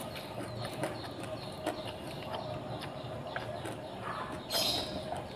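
A person eating by hand and chewing: soft mouth smacks and small irregular clicks, with a short hiss about four and a half seconds in.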